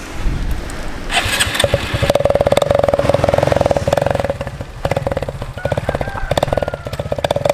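Motorcycle engine running with a rapid, even exhaust beat. The level dips a little past the middle, then picks up again.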